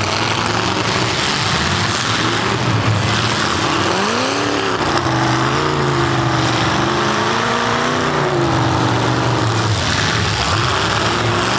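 Several V8 demolition derby cars running hard together. About four seconds in, one engine revs up and holds a wavering pitch for several seconds before it drops back.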